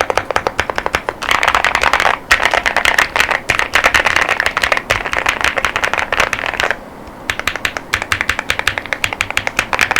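Mechanical keyboard with Tecsee Neapolitan tactile 40 gf switches and PBT OEM-profile keycaps, typed on quickly and steadily. The clicking stops for a moment about two seconds in and again for about half a second near the seven-second mark.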